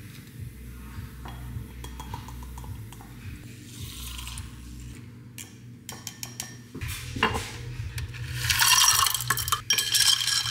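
Mixing a pre-workout drink: a plastic scoop clinking against a powder tub, a small handheld milk frother whirring in a glass jar, then ice cubes clinking and rattling in a glass as it is stirred, the loudest part, from about two-thirds of the way through.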